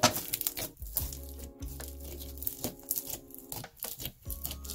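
Hands squeezing and kneading homemade glue-based glitter slime, giving a run of short, irregular sticky clicks and pops, over steady background music.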